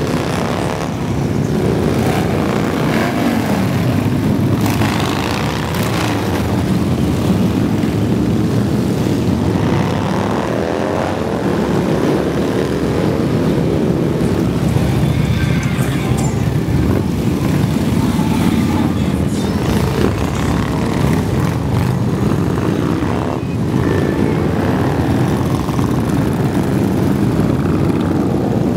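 A long stream of big touring motorcycles and trikes riding past one after another: a continuous loud engine drone, with engine notes sliding up and down in pitch as each bike goes by.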